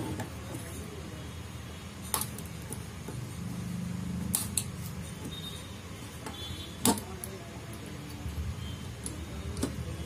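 Small flush cutters snipping component leads on a circuit board: a handful of sharp clicks a couple of seconds apart, the loudest about two-thirds of the way in, over a low steady hum.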